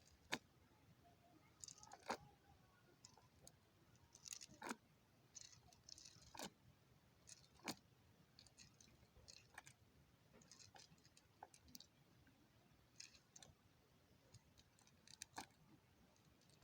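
Near silence broken by faint, irregularly spaced clicks, taps and short crackles, the sharpest about a second in and again about two seconds in.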